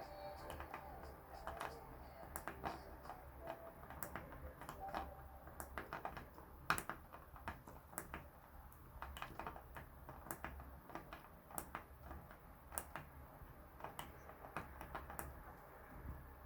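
Faint, irregular small plastic clicks of a thumb joystick module being flicked in different directions and pressed, a few clicks a second with one louder click near the middle, over a low steady hum.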